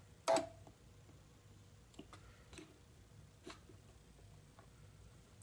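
Solder wire being handled at the feed rollers of a homemade solder feeder: one sharp click about a third of a second in, then a few faint scattered clicks and taps over a low steady hum.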